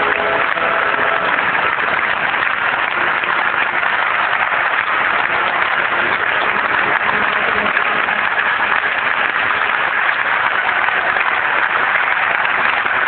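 Theatre audience applauding: dense, steady clapping from a large crowd.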